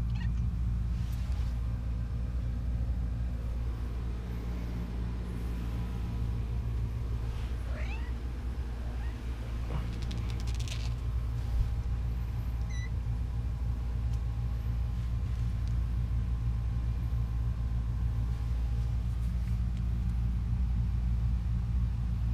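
Young kittens mewing a few times: thin rising cries about a third of the way in and a short high mew a little later, with one knock between them. A steady low rumble runs underneath and is the loudest sound.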